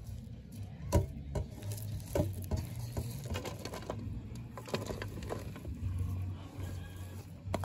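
Hands mixing chili paste and shredded taro root on a steel plate: irregular soft taps, pats and scrapes, with one sharper knock about a second in, over a steady low hum.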